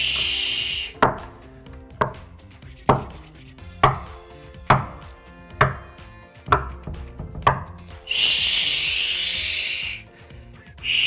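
A "shhh" ending about a second in, then eight knuckle knocks on a closed bedroom door, about one a second, then a long "shhh" and another beginning at the end: the knock-and-shush cue that distracts a protesting baby while it learns to self-settle.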